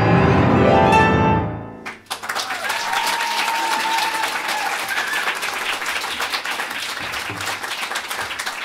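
Cello and piano end the piece with a rising run that stops sharply just before two seconds in. Audience applause follows and carries on steadily after that.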